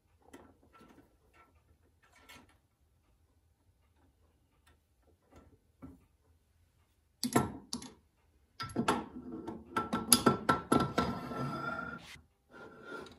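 Faint clicks of small metal parts being handled at a watchmaker's lathe. From about seven seconds in come loud metal clunks, then a few seconds of clattering and a ringing, scraping slide as the cast tailstock is set onto the lathe bed and slid along it. The lathe's motor is not running.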